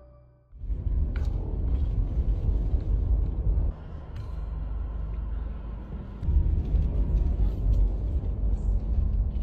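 Low rumble of a car being driven, heard from inside the cabin. It dips about four seconds in and grows louder again after about six.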